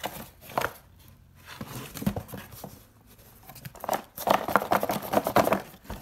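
Paper manuals and a plastic-wrapped cardboard tool box being handled, rustling and crinkling. A few sharp clicks come near the start, and a louder, busier stretch of crinkling comes in the second half.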